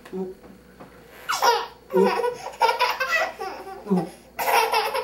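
Laughter in repeated loud bursts, starting about a second in.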